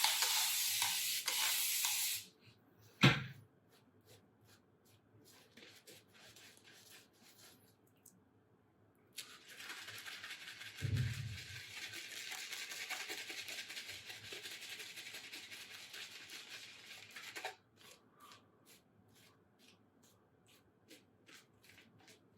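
Shaving brush working shave soap into lather, a hissing swish that stops suddenly about two seconds in and returns for a long stretch in the second half. There is a single sharp knock about three seconds in, and small clicks in between.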